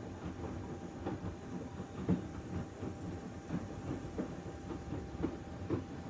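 Panasonic VX6 front-loading washing machine in its main wash: the drum turns and the laundry tumbles with irregular soft thuds several times a second over a steady machine hum.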